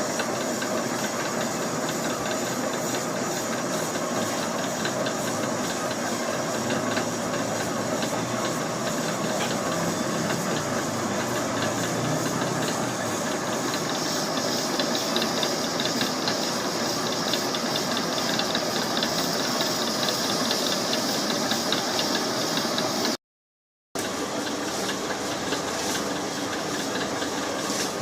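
Machinery running steadily, a constant hiss with a faint hum, and a brighter high hiss joining about halfway through. It breaks off briefly near the end.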